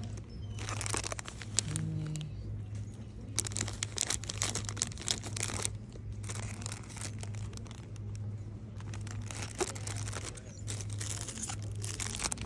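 Clear plastic packaging crinkling and rustling in irregular bursts as it is handled, over a steady low hum.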